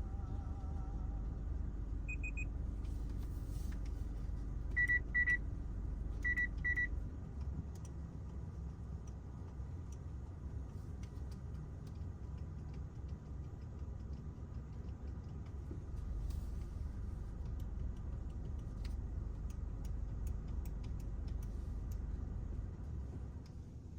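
Steady car-cabin rumble with short, high electronic beeps: a single beep about two seconds in, then two quick double beeps a second and a half apart.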